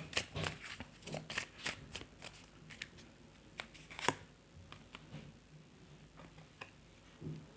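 A tarot deck being shuffled by hand: a run of quick, papery snaps and slides of the cards for about four seconds, then only a few faint soft touches of the cards.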